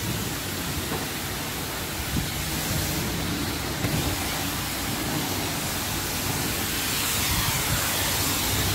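High-pressure wash lance spraying water onto a car at a self-service car wash: a steady hiss of spray with a low hum underneath, a little louder in the last couple of seconds.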